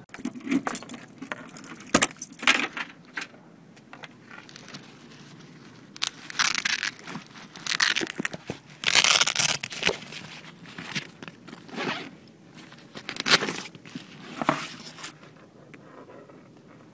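Handling noise of objects moved about in hands close to the microphone: irregular bursts of rustling and knocking, with a few sharp clicks.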